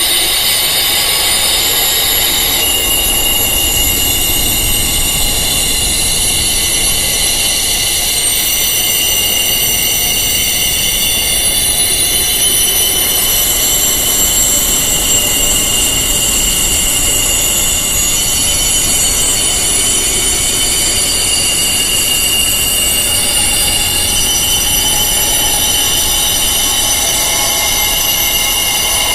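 Wind chimes tuned to tinnitus frequencies ringing: many high tones that overlap, hold and change slowly, over a steady low hiss-like haze.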